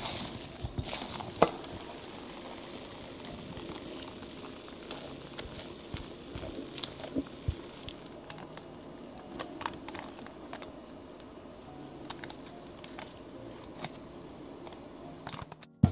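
Spatula folding thick sponge-cake batter in a glass bowl, then scraping it off and spreading it into a parchment-lined square cake pan. The sound is soft, wet swishing and scraping, with scattered light clicks and taps.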